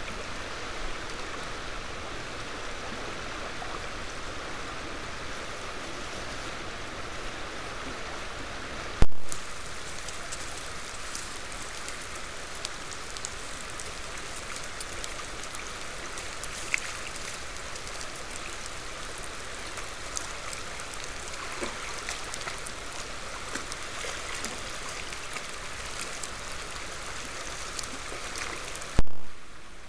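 Stream water running steadily, a constant rush, with a few faint ticks scattered through it. Two sharp thumps, about nine seconds in and near the end, where one 20-second trail-camera clip ends and the next begins.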